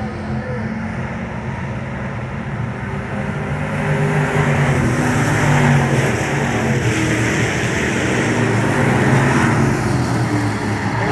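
Thunder Bomber stock car engine running hard at racing speed, its pitch rising and falling with the throttle and getting louder about four seconds in.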